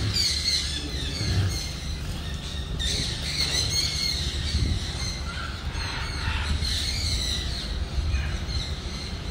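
Small birds chirping and twittering, many short high calls scattered through, over a low steady rumble.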